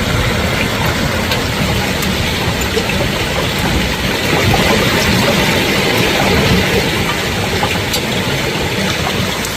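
Heavy hailstorm: hail and rain falling hard, a loud, steady rush with scattered sharp clicks of individual hailstones striking.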